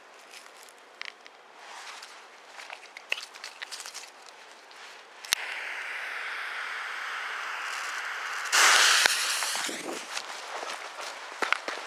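A Retorno 70 firecracker's fuse catches with a sharp snap and hisses steadily for about three seconds. The firecracker then goes off with a loud burst that dies away over about a second, followed by footsteps in grass.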